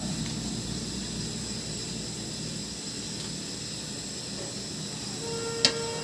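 Curry masala frying in a pan, a steady sizzling hiss. Near the end comes a short metallic squeak with a sharp clink, like a ladle against the pan.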